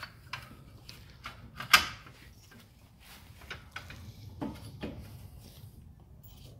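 Metal clicks and clunks from a new wheel hub bearing assembly being handled and seated against a Scion xB's drum-brake backing plate, with one sharp knock just under two seconds in and two duller knocks later on.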